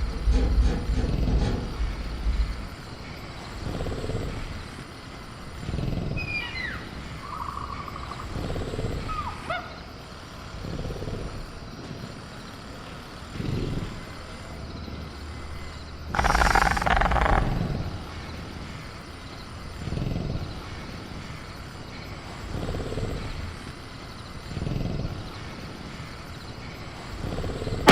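Ambient velociraptor sound effects. Low growls swell up every couple of seconds, and a thinner call glides up and down in pitch around a quarter of the way in. A short harsh hiss comes a little past halfway. A steady bed of crickets runs underneath.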